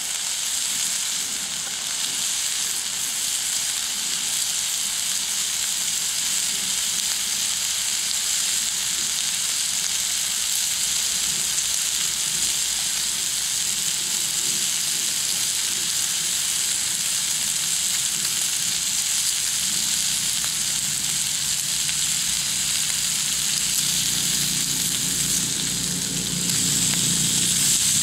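Bacon frying in a pan over a wood fire, a steady sizzle. In the last few seconds a lower rumble joins in and it gets a little louder.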